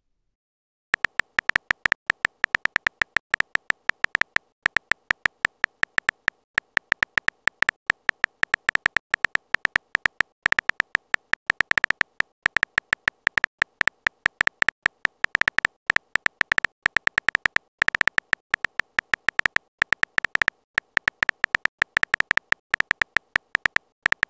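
Simulated phone-keyboard typing clicks from a texting-story app, a rapid, uneven run of short, sharp pitched ticks, several a second, starting about a second in as a message is typed out letter by letter.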